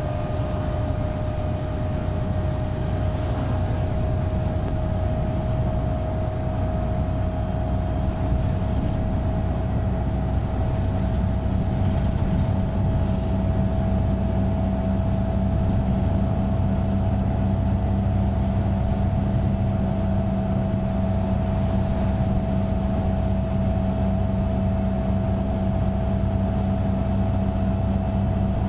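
Van Hool new AG300 articulated bus under way, heard from inside the passenger cabin: the DAF PR228S six-cylinder diesel runs with a steady hum. A drivetrain whine over it rises slowly in pitch.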